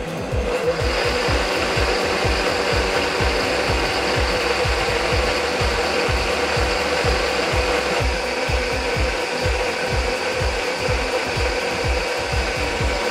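Countertop blender motor running at speed, blending a milky thandai of ground nuts and milk. It spins up at the start and then runs steadily with a constant whine.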